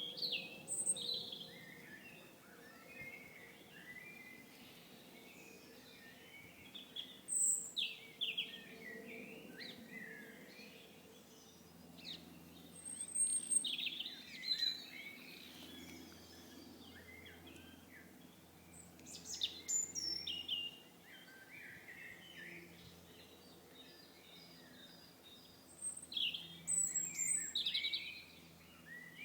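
Songbirds singing in spring woodland: bursts of varied chirping song phrases come every several seconds, over a faint steady low hum.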